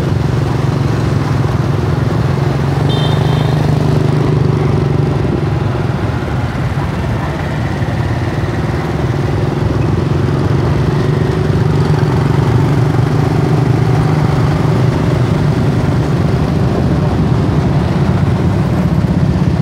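Motorbike traffic heard from a moving motorbike: the steady low rumble of the bike's engine and road noise, mixed with the engines of the scooters and cars around it. A brief high tone comes about three seconds in.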